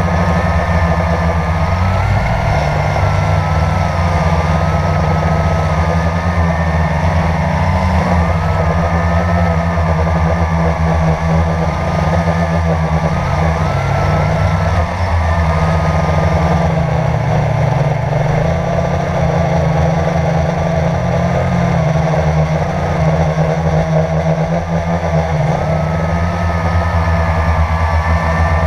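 Multirotor drone's electric motors and propellers buzzing loudly, heard from the camera on the drone itself, the whine wavering up and down in pitch as the motors speed up and slow down in flight.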